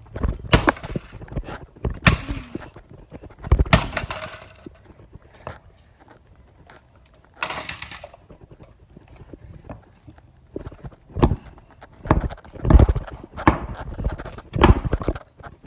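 A DirecTV satellite receiver being smashed with hard blows on a concrete floor, its plastic case cracking and breaking. The blows come in two runs, several in the first few seconds and about five more close together near the end.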